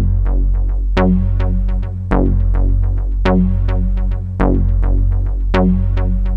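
Electronic background music: sharp, repeating synth or piano-like notes over a steady deep bass line, the bass note changing about every second.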